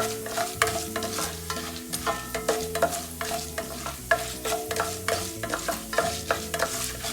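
Tempering of mustard seeds, chana dal and urad dal frying in hot oil, stirred with a spatula: a steady sizzle with quick repeated scrapes and knocks against the pan, several a second.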